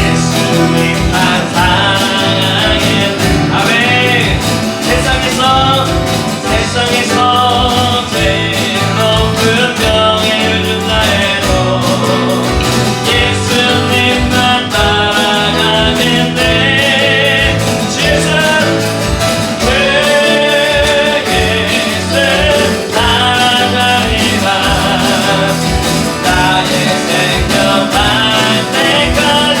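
Live worship band playing a praise song, with acoustic guitar, keyboard, bass guitar and electronic drums under voices singing, keeping a steady beat.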